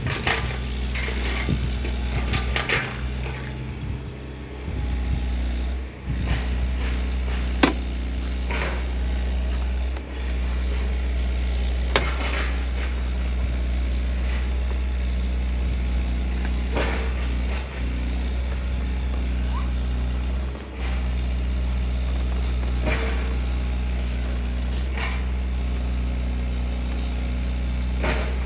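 Excavator's diesel engine running steadily, with a few sharp clicks or knocks from time to time.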